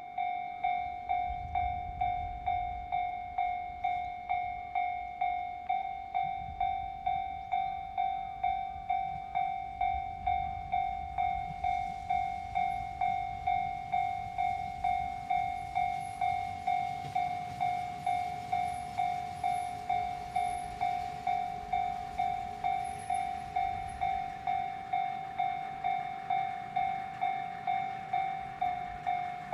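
A railway level-crossing warning bell ringing steadily, about two strokes a second, while a KiHa 40 diesel railcar runs in with a low rumble and draws to a stop at the platform.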